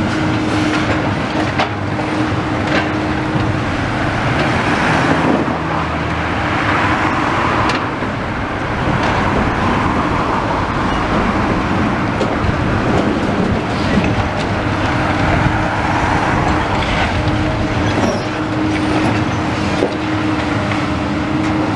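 A long-reach demolition excavator running, its engine and hydraulics giving a steady hum as it works its grab at a brick wall, mixed with passing road traffic. A few short knocks come through here and there.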